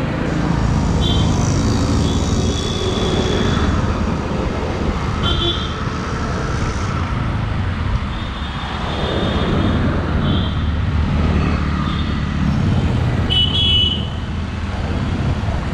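Busy street traffic: a steady rumble of scooter, motorbike and auto-rickshaw engines, with short horn toots several times.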